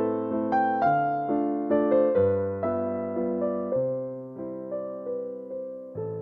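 Background piano music: a gentle melody with notes struck about twice a second, each fading away.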